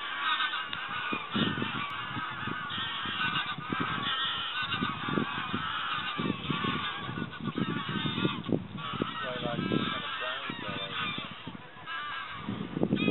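A flock of geese honking, many calls overlapping in a continuous clamour, easing briefly near the end before a louder burst of calls.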